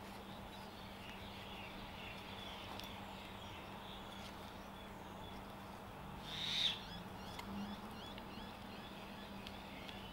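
Birds calling faintly, with one brief, louder shrill call about six and a half seconds in, over a low steady hum. A few faint clicks come from a carving knife slicing wood.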